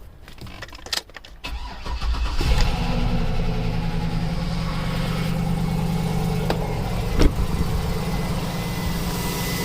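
A 2005 Cadillac Escalade's 6.0 L V8 cranks briefly, catches about two seconds in and then idles steadily, with one sharp knock partway through. It starts now that the failing fuel pump has come back on after a crank-no-start.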